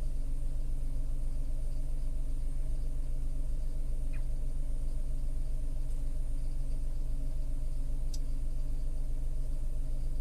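Tata Altroz's naturally aspirated 1.2-litre three-cylinder petrol engine idling steadily below 1000 rpm after warming up, heard inside the closed cabin as a low, even hum. Two faint short chirps about four and eight seconds in.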